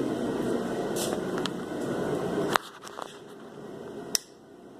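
A steady machine running noise cuts off suddenly about two and a half seconds in, leaving a quieter background with a few sharp clicks, one louder click near the end.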